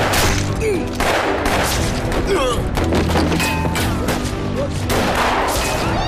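Film-soundtrack gunfight: repeated gunshots, roughly one or two a second, over a dramatic music score.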